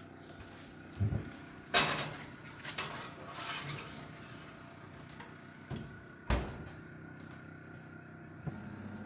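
A foil-lined metal baking tray clattering as it is lifted, set onto the oven rack and slid in, with several knocks, then a heavy thud about six seconds in as the oven door is shut.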